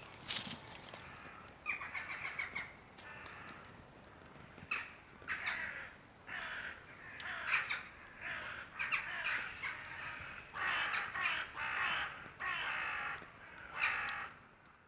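A flock of crows cawing, harsh calls overlapping and growing denser from about five seconds in, with a few sharp clicks near the start.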